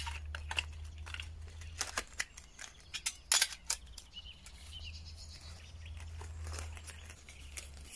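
Small metal folding pocket stoves and a metal tin being handled on a tile table: a scatter of sharp clicks and knocks, most of them in the first four seconds. A short bird chirp about four seconds in, over a low steady rumble.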